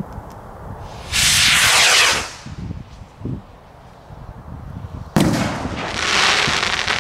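Firework rockets: a loud hissing whoosh about a second in as a rocket goes up, then a sharp bang about five seconds in as a rocket bursts, followed by a crackling hiss from the burning stars.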